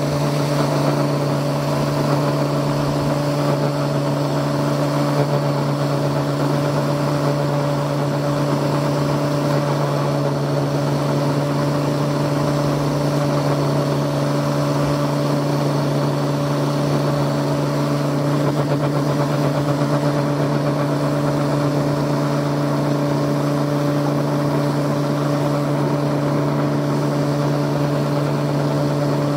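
Table-mounted angle grinder fitted with a sanding disc, running steadily with an even motor whine, while a piece of acrylic is pressed against the disc to sand its corners round.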